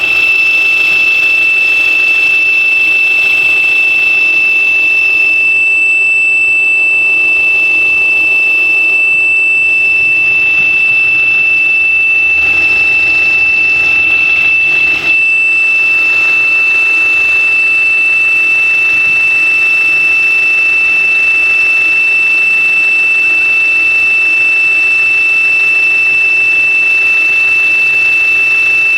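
Opel Astra H giving a steady high-pitched whistle, one unbroken tone held over the sound of its running engine.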